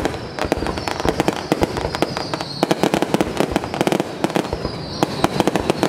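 Close-range fireworks display: dense, rapid crackling and popping from shells and fountains bursting overhead, with a thin whistle falling in pitch running through it twice.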